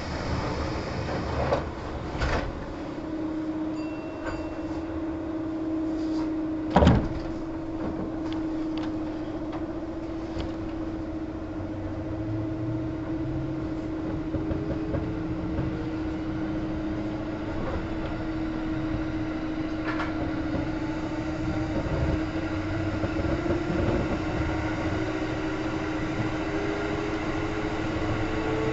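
Kintetsu 1810 series electric train heard from inside the car as it pulls away from a station after its doors have closed. A steady hum, a sharp clunk about seven seconds in, then motor whine slowly rising in pitch as the train gathers speed.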